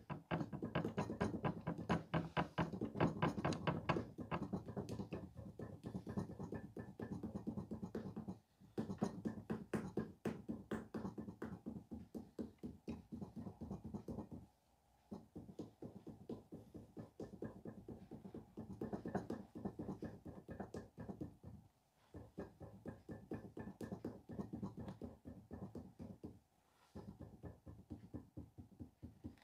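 Rapid, even tapping of a hand-held tool against clay as a sculpted head is worked, many quick strikes a second in long runs with a few short breaks.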